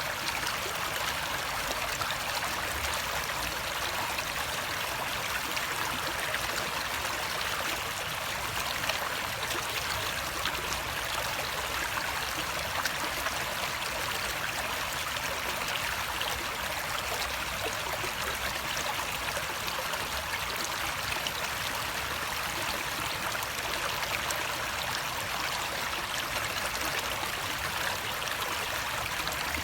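Flowing water, a small stream trickling and splashing in a steady, unbroken rush.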